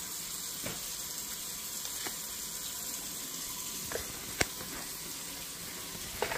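Oil heating in a frying pan, sizzling with a steady hiss and a few sharp pops and spits.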